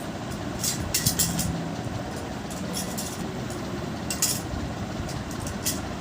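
Pen strokes scratching on paper while drawing: a handful of short, high scratches over a steady background rumble.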